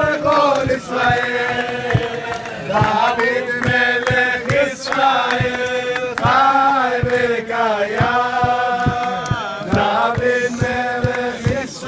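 A group of men singing a Hebrew celebration song together in unison, holding long notes.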